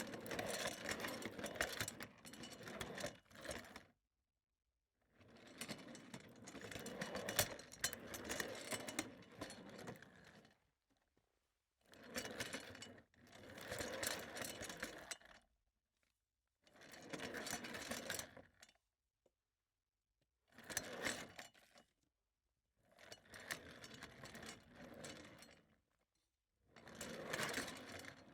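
Office chair rolling on its casters in a series of about seven separate pushes, each a rattling rumble lasting one to five seconds, with dead silence between them.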